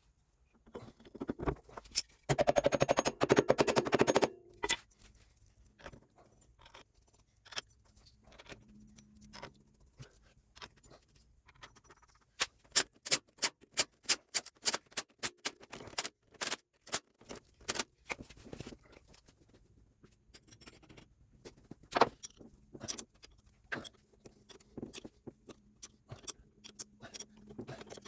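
Hand tools working on metal: a couple of seconds of very fast clicking near the start, then a long run of separate sharp clicks and knocks, about two or three a second.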